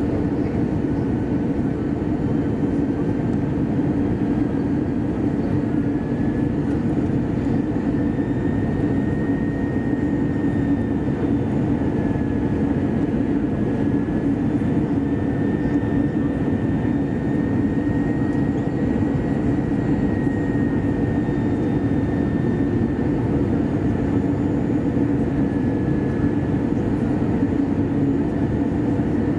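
Steady cabin noise inside an Airbus A320-214 with CFM56-5B engines: an even rumble of engines and airflow, with a faint high whine that drifts slightly in pitch.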